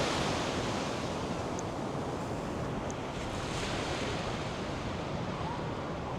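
North Sea surf washing onto a sandy beach, a steady rushing wash that is a little louder at the start and eases off, with wind buffeting the microphone.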